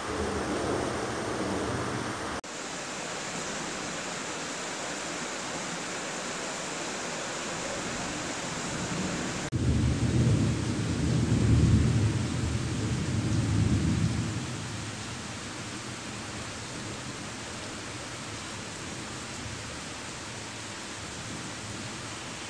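Steady rain falling, with a low rumble of thunder at the start. About ten seconds in, a louder roll of thunder lasts some five seconds.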